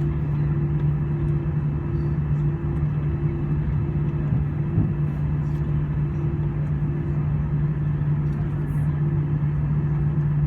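Airbus A320 cabin noise: a steady drone of the jet engines and airflow, with a strong constant low hum.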